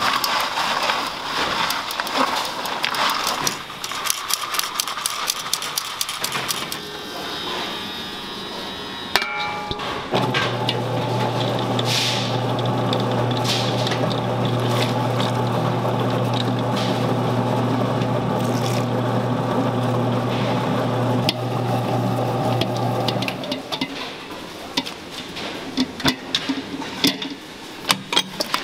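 Gloved hands rub crumbly white dough through a metal sieve with a gritty scraping and small clicks. After about ten seconds a stand mixer's motor starts and runs with a steady hum for about thirteen seconds, its flat beater turning powder in the steel bowl. The mixer stops near the end, giving way to scattered knocks and scraping on the bowl.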